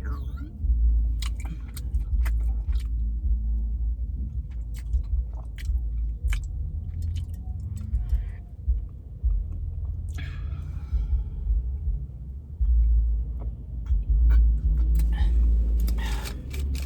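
Close-up chewing and mouth clicks as a person eats fast food, over a steady low rumble.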